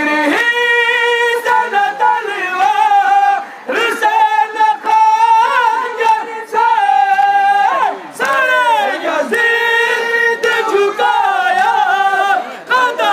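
A noha, the Shia Muharram lament, sung by men's voices: a lead singer on a microphone with others joining in chorus. It comes in long held phrases broken by short pauses.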